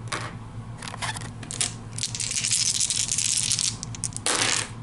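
A small handful of board-game dice clicking as they are gathered up, then rattling as they are shaken in the hand for about a second and a half, with a short clatter near the end.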